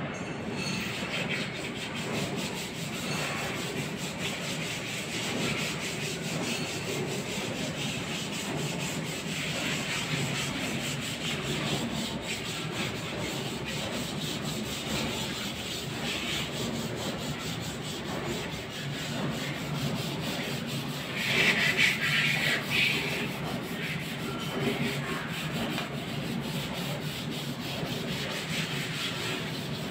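Machinery running with a steady, gritty grinding and rubbing noise. A louder, harsher rasp stands out for about two seconds a little past the middle.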